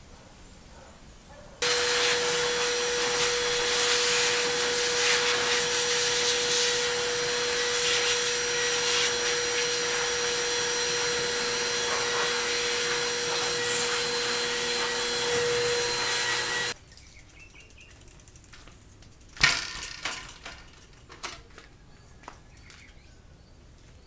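Wet/dry shop vacuum switched on about two seconds in, running steadily with a constant hum, then switched off about seventeen seconds in. A sharp knock and a few lighter clicks follow a couple of seconds later.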